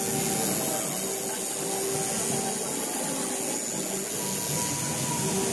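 Electric tattoo machine running steadily, a buzzing hum that fades in and out over a continuous whir.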